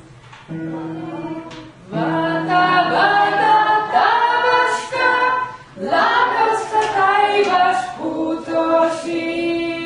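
A group of voices singing a folk song a cappella. A steady low drone note is held, breaking off briefly twice, and from about two seconds in a melody is sung over it.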